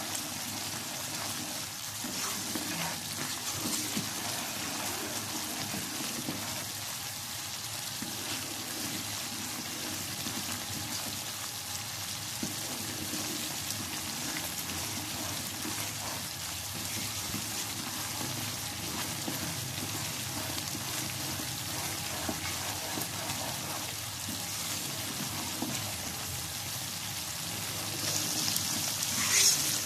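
Semolina-and-sugar-syrup mixture bubbling in a pan as a spatula stirs it, cooking off its water over a medium-to-high flame. The hiss grows louder for a moment near the end.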